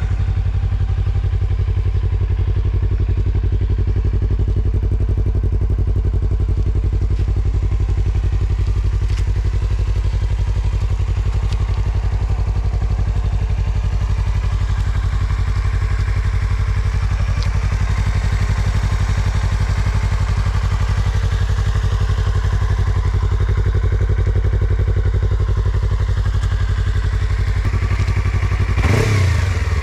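Yamaha MT-25's parallel-twin engine idling steadily through a Yoshimura aftermarket exhaust, then revved briefly near the end.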